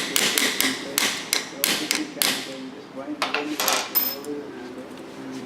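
Light hammer taps on a small metal part of a door lock solenoid, about three to four a second, stopping a little over two seconds in, then a few quicker taps about three to four seconds in: peening a flange over on the bench.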